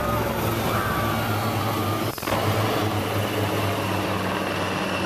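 A formation of HAL Dhruv helicopters of the Sarang display team flying overhead, giving a steady low rotor thrum with turbine noise. The sound dips briefly about two seconds in.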